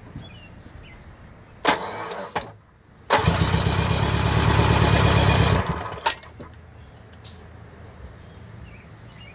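Electric starter cranking a 1975 Mercury 850 four-cylinder two-stroke outboard for a compression test: a short crank of under a second, then a longer rhythmic crank of about two and a half seconds, and a sharp click just after. The gauge on cylinder #2 reads 173 psi, compression the owner calls really good.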